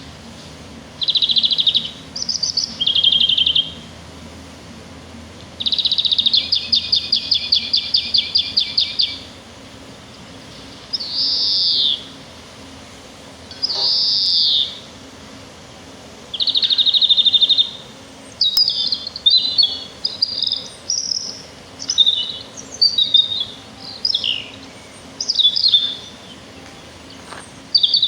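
Songbird song in separate phrases. There are rapid pulsing trills near the start and again from about 6 to 9 seconds in, single slurred notes around 11 and 14 seconds, another trill, then from about 18 seconds on a quicker run of varied twittering notes.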